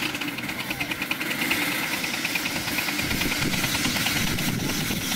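Live-steam miniature locomotive, a model of a South African Railways engine, working past close by with a rapid, even chuff of exhaust beats, about ten a second. A deeper rumble of the train rolling by joins about halfway through.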